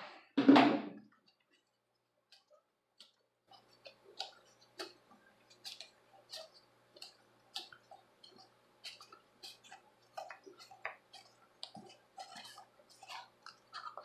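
A heat gun's blowing cuts off at the start, followed by one thud about half a second in. From about three and a half seconds come faint, irregular clicks and creaks as hands bend and press a heated EVA foam piece into a curve on a tabletop.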